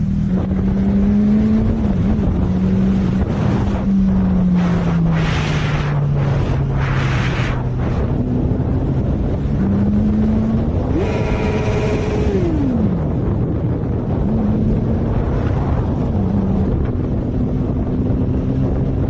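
Motorcycle engine running under way, its pitch sliding down and back up with the throttle, with one quick rev up and back down about eleven seconds in. Wind rushes over the helmet-mounted microphone, in gusts between about five and eight seconds in.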